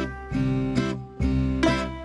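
Instrumental closing music with a low bass note pulsing about once a second.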